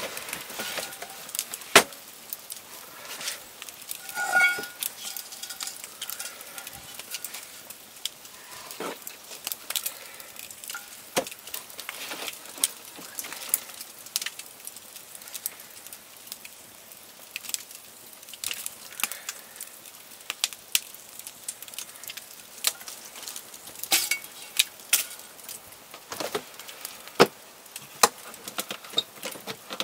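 Wood fire crackling with frequent sharp pops, mixed with clinks and knocks of a frying pan and a wooden crate being handled. A short ringing metallic clink comes about four seconds in.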